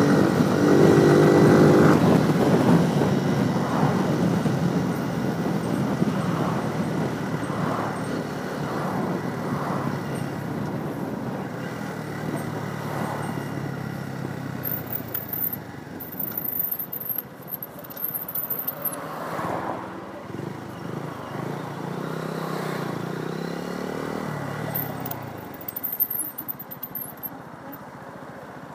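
Small motorcycle engine heard from the rider's helmet camera while riding, under a steady rush of road noise. It is loudest at the start, then eases off gradually as the bike slows toward a roundabout, with the engine note falling and rising a few times near the end.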